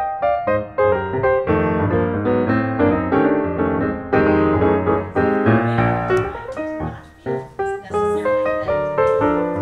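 Piano music playing, a steady run of notes with chords beneath.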